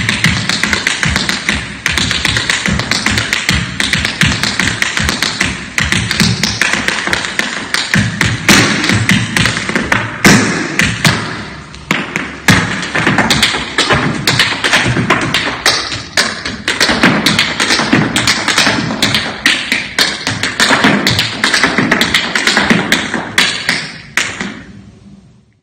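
Tap shoes striking the floor in a fast tap improvisation: dense, uneven rhythms of quick metal taps and heavier stamps, easing briefly about halfway and fading out at the very end.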